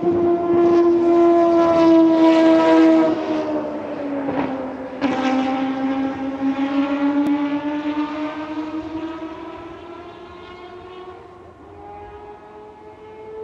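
Mazda 787B's four-rotor rotary racing engine running under power. Its pitch sags a few seconds in, a sharp crack comes about five seconds in, and the note then grows fainter until a higher engine note rises near the end.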